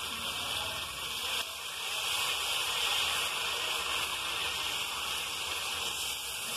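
Sweet wheat-flour dosa batter sizzling on a hot tawa as it is poured and spread with a ladle: a steady high hiss.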